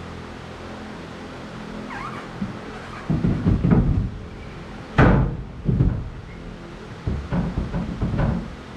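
A large flat floor panel being lowered into a stripped fibreglass boat hull and shifted into place, knocking and thudding against the hull. A cluster of thuds comes first, then one sharp knock, the loudest, about five seconds in, and more bumps near the end.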